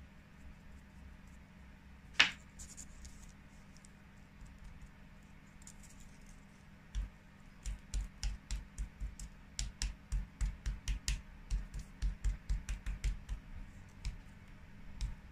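A small foam pad dabbing paint onto a tiny model sign lying on a plastic-sheeted table: a quick run of soft taps and thumps, about three a second, starting about seven seconds in. There is one sharp click about two seconds in.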